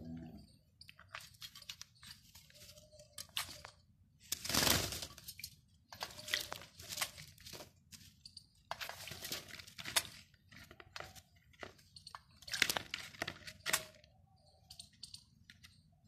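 Parakeets bathing in a steel bowl of water: repeated bursts of splashing and wing-flapping. The loudest burst comes about four to five seconds in.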